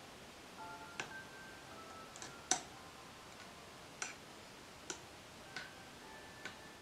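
Metal spoon clinking against a small steel pan while stirring curry: about seven sharp clicks at irregular spacing, the loudest about two and a half seconds in.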